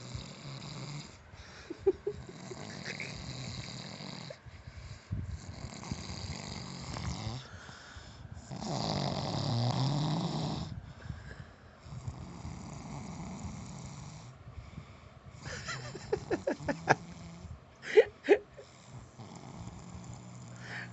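A person snoring, with several long snoring breaths a few seconds apart, the loudest about nine seconds in. Near the end comes a run of short, sharp sounds.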